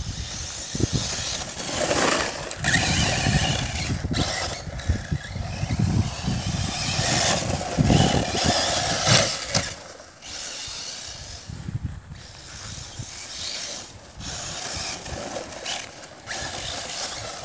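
Arrma Typhon 6S RC buggy driven hard on grass: its brushless electric motor whines in bursts as the throttle is blipped, mixed with tyre and chassis noise. The sound is louder in the first ten seconds, then quieter.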